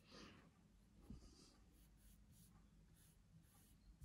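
Faint, soft swishing of a large paintbrush scrubbing wet oil paint into a canvas, a few strokes.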